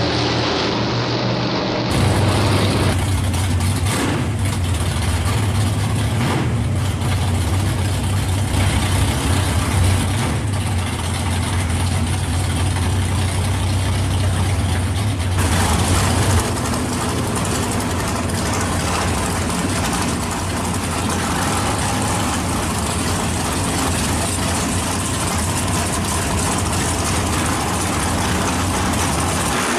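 Drag-race car engines idling and running at low revs with a deep, steady rumble, in several spliced clips that change abruptly about two seconds in and again about halfway through.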